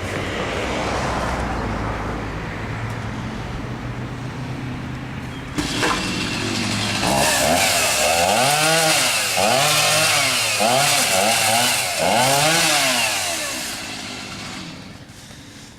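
Chainsaw running steadily, then revved up and down about once a second for several seconds, with a sharp knock just before the revving starts; it dies away near the end.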